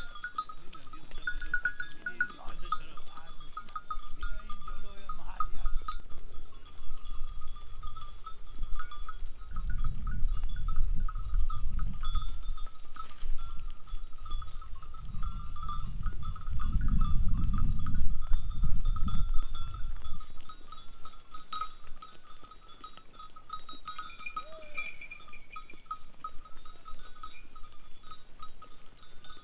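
Bells on a herd of sheep and goats jingle and clink steadily as the animals move and graze. A low rumble swells twice in the middle.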